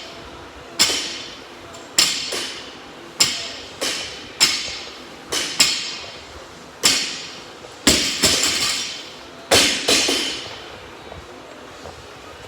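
Loaded barbells set down on the floor again and again during deadlift reps, each a metallic clank with a short ring, about one a second and unevenly spaced.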